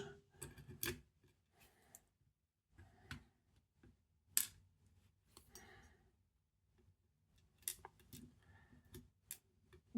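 Scattered small metallic clicks and ticks as tweezers pick tiny pins and springs out of a dimple lock's cylinder, about seven in all, the loudest about four and a half seconds in, with near silence between.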